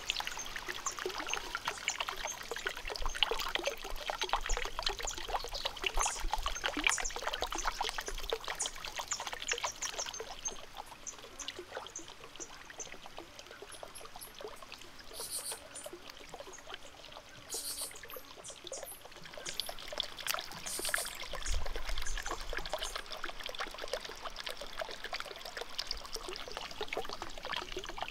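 Water trickling and splashing steadily as it pours from small spouts into a shallow clay pond, softer for several seconds in the middle.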